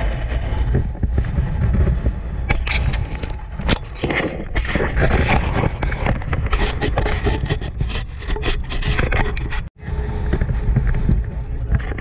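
Off-road motorcycle running along a rough dirt trail, its engine rumble mixed with irregular scraping and knocking from the rocky track. The sound cuts out for an instant nearly ten seconds in.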